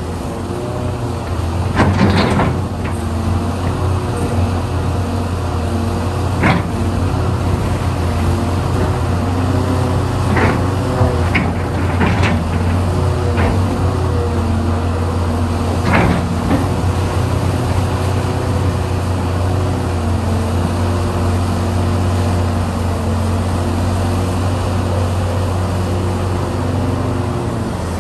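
Hitachi Zaxis 670 excavator's diesel engine running under load as it digs and swings, its note shifting up and down with the work. Scattered clanks and knocks of the bucket and rock, loudest about two seconds in and again about sixteen seconds in.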